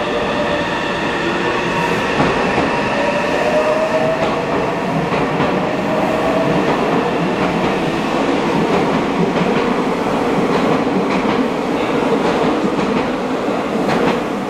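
Meitetsu electric train moving through the underground station, its motor whine rising in pitch over the first several seconds as it gathers speed. Wheels click over the rail joints near the end.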